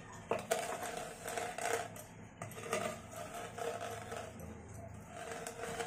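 Wooden rolling pin crushing dry-roasted cumin seeds, red chillies and curry leaves on a wooden board, with irregular crackling crunches as the spices break, over a steady low hum.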